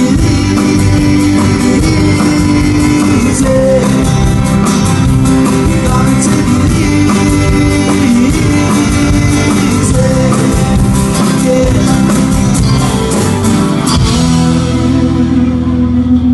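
Live band playing a rock song with guitars and singing. About fourteen seconds in, the upper parts fade away and a held low chord rings on as the song closes.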